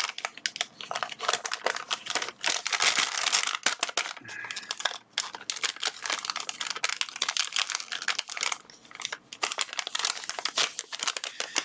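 Plastic packaging crinkling and rustling in irregular bursts as hands work a cleaning swab out of it.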